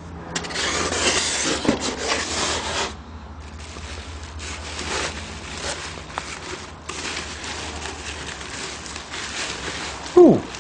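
Plastic bubble wrap and packing material rustling and crinkling as it is handled and pulled off, loudest in the first few seconds and softer after. Near the end comes one short, loud sound that falls quickly in pitch.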